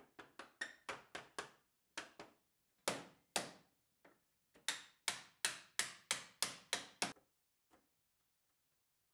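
Wooden mallet tapping notched walnut dividers together into their interlocking slots, partly through a wood block laid across the grid: a run of sharp wooden knocks, quick at first, two louder blows about three seconds in, then an even series of about eight knocks that stops about seven seconds in.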